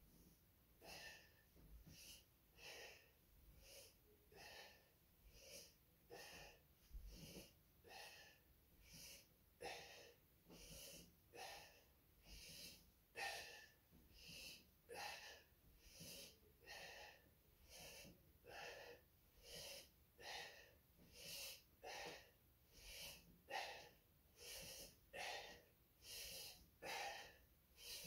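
A man breathing hard in short, even puffs, a little more than one a second, in time with squat repetitions. Faint.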